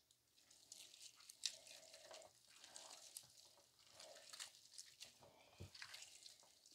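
Faint, irregular tearing and squishing of smoked pork butt being pulled apart by hand, with the rustle of nitrile gloves.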